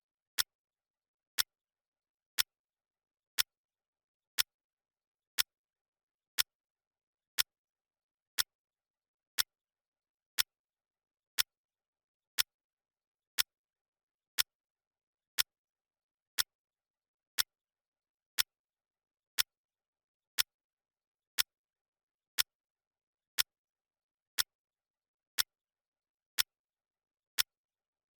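Clock ticking once a second: sharp, even clicks with silence between them.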